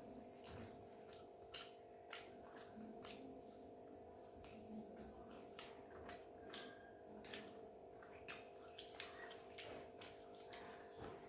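Faint wet mouth clicks and chewing of food, one or two sharp clicks a second, over a steady low electrical hum.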